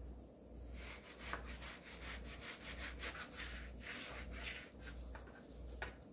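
Kitchen knife sawing back and forth through a slab of raw, machine-scored beef on a plastic cutting board: a quick run of faint scraping strokes.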